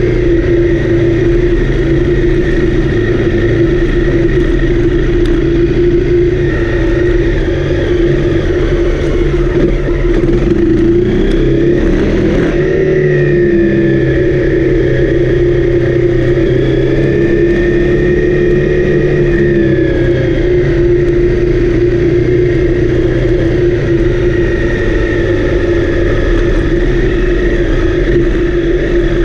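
Honda CRF250L's single-cylinder four-stroke engine running under way, holding a steady pitch with small rises and falls in revs around the middle.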